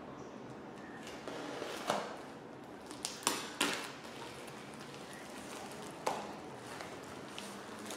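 Tape and wrapping on a heavily over-taped parcel being pulled and torn open by hand: a few short sharp rips and crinkles, the loudest cluster about three to four seconds in and another near six seconds.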